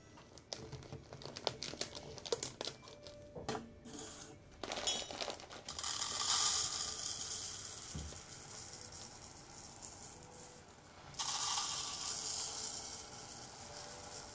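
Plastic rice bag crinkling as it is opened and handled, then dry jasmine rice pouring in a hiss from the bag into a plastic measuring cup in a stainless steel bowl. The pour comes twice, the second starting about eleven seconds in.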